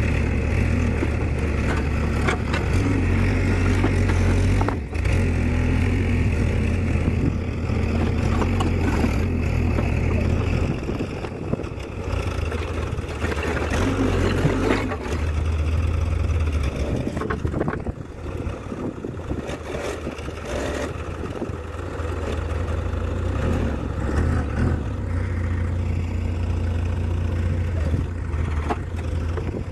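Diesel engine of a Mecalac 12MX wheeled excavator running steadily, its level rising and falling as the machine works. A few sharp knocks of the bucket against concrete rubble.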